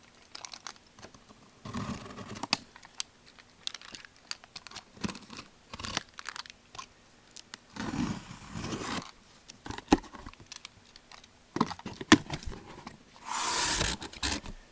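Hands opening a sealed box of trading card packs: cardboard and wrapper packaging tearing and crinkling among light clicks and handling knocks, with a longer, louder tear near the end.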